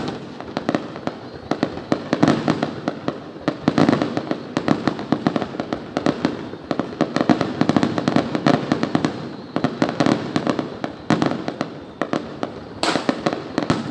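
Fireworks display: aerial shells bursting in a continuous barrage of sharp bangs and crackles that overlap irregularly, with a denser burst of crackling near the end.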